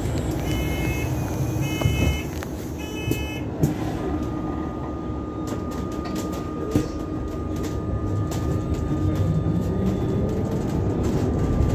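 Alexander Dennis hybrid double-decker bus in motion, heard from the lower deck: a steady low rumble of road and drivetrain, joined about four seconds in by a thin steady whine. A few short electronic beeps sound in the first three seconds.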